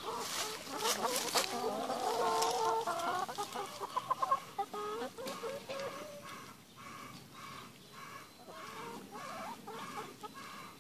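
A flock of brown hens clucking, with drawn-out wavering calls through the first half, then a steady run of short repeated clucks about two a second.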